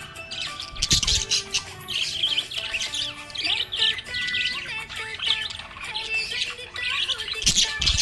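Budgerigar chirping and chattering in a fast, continuous warble of short, high chirps. There are two low thumps, one about a second in and one near the end.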